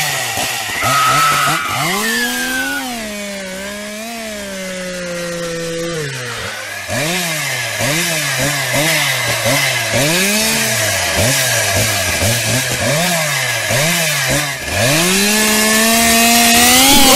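Chainsaw engine running, held at a fairly steady speed at first, then revved up and down about once a second through the middle, and finally held at a steady high speed, loudest near the end.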